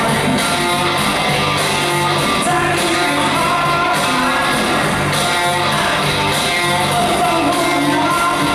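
Live rock band playing loudly: a male lead singer over electric guitars and drums.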